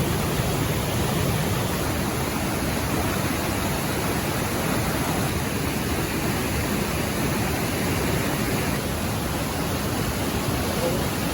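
Waterfall in full monsoon flow: a steady, even rush of heavy falling water.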